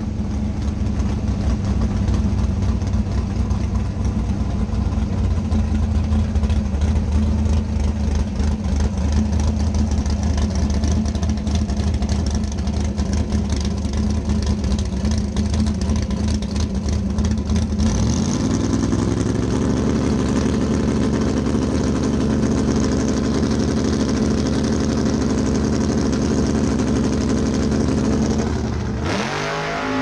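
A gas drag-race car's engine running loud and steady in the next lane. About two-thirds of the way through it steps up to a higher steady pitch, held on the line, then near the end it revs sharply up as the car launches.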